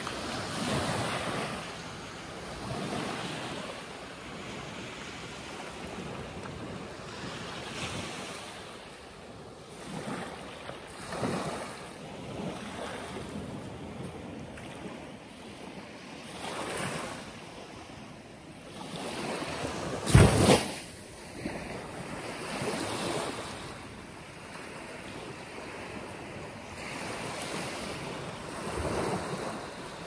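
Small waves washing up onto a sandy beach, the wash swelling and falling every few seconds, with wind on the microphone. About two-thirds of the way through, a brief loud rush is the loudest sound.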